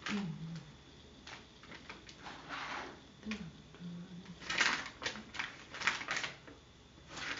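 Plastic clicking and rattling as an expanding plastic sphere toy is handled on a table, in clusters of quick clicks, busiest about two-thirds of the way through. A voice gives a short low hum near the start and again about three seconds in.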